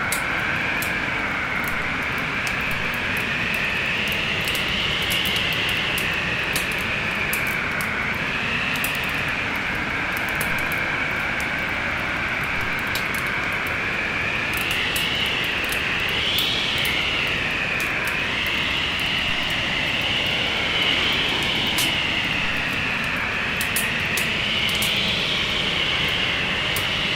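Steady rushing of a winter storm wind whose tone slowly sweeps up and down, over many sharp crackles and pops from a wood fire burning in a fireplace.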